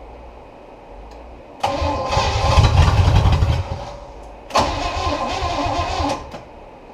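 Small-block Chevy 350 inboard boat engine cranked over by its starter in two tries, about two seconds and a second and a half long, without starting.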